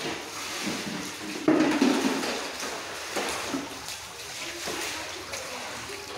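Footsteps in rubber boots splashing through shallow sewage floodwater on a tiled floor, with a louder splash about a second and a half in.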